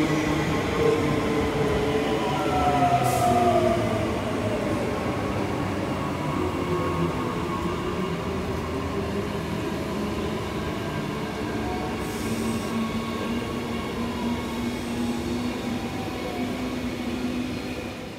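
Queensland Rail suburban train running, with several whining tones over a steady rumble; some of the tones slide slowly down in pitch.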